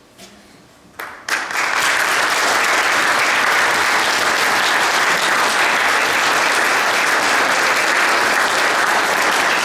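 A congregation applauding, the clapping starting about a second in and then holding steady.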